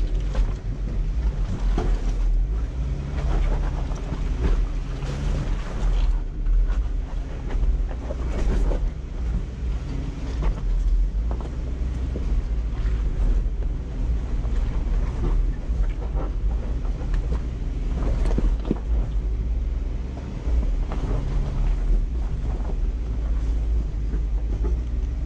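Off-road vehicle's engine running low and steady as it crawls over rock, with frequent knocks and crunches from the tyres and chassis on the rocks.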